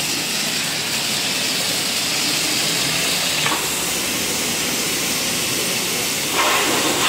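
Pressure-washer jet hissing as it sprays the foam-covered car body and wet floor. The hiss is steady, softening a little in the middle and growing louder and brighter near the end as the jet moves.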